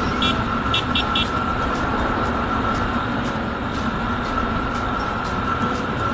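Yamaha FZ25 single-cylinder motorcycle running steadily on the road, its engine mixed with wind and road rush. A few short high beeps sound in the first second or so.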